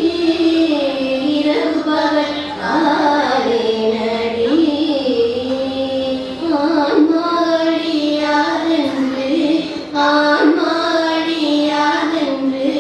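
Two women singing a devotional hymn together, accompanied by a harmonium.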